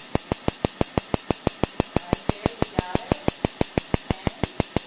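Excimer laser firing a steady train of sharp clicks, about five or six a second, as it reshapes the cornea during PRK eye surgery. A faint voice is heard under the clicks.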